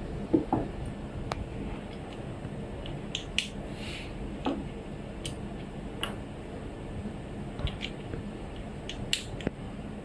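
Scattered small clicks and taps as a panoramic lever clamp is worked and quick release plates are picked up and set down on a table, over a steady background hiss.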